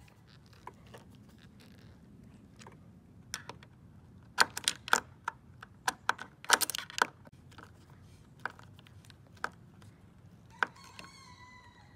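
Small sharp metallic clicks and taps of a hand screwdriver turning screws into a car roof rail's mounting holes, with a quick cluster of them in the middle. A rooster crows briefly in the distance near the end.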